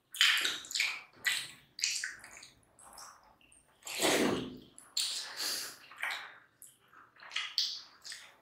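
Close-miked wet eating sounds: fingers squishing rice with curry, chewing and lip smacks in quick, irregular bursts. About four seconds in comes a longer, louder sound as a handful of food goes into the mouth.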